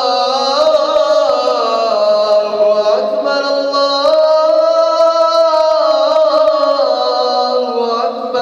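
A man chanting the Islamic call to prayer (azan): one long melismatic phrase, the voice held without a break while its pitch winds slowly up and down.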